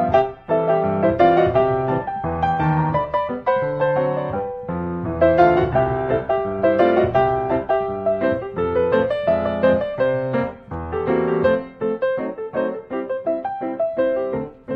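Background piano music, a steady run of notes with no pauses.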